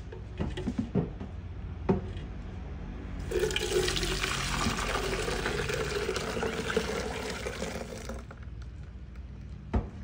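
Ground-almond gelato mixture poured into a fine-mesh metal strainer: a steady splashing pour lasting about five seconds, from a few seconds in. A few short knocks come before it and one click near the end.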